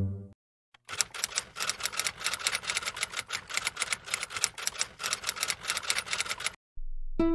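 Typing sound effect: rapid, uneven keystroke clicks that start about a second in and stop shortly before the end.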